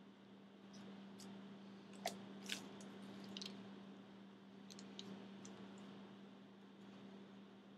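Faint handling sounds of soft clay being squeezed and worked with a wooden modelling tool, with a few soft clicks scattered through the middle, over a steady low electrical hum.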